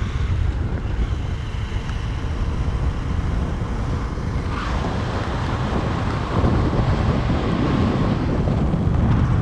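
Wind buffeting the microphone of a camera carried in a moving vehicle on an open road, with a steady low rumble from the road and the vehicle underneath.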